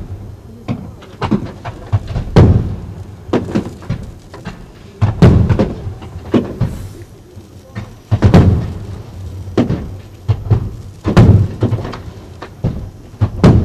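Aerial fireworks bursting: a loud boom of a shell exploding about every three seconds, with many smaller cracks and pops between.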